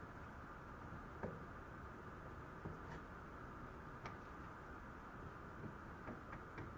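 Faint scattered clicks and taps over a steady low hiss, as a Maltese puppy noses and licks at a round plastic plate.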